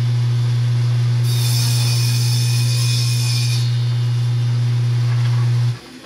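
Table saw motor running with a steady low hum while the blade rips through a wooden board, a hissing cut that lasts from about a second in to about three and a half seconds. All of the sound cuts off suddenly near the end.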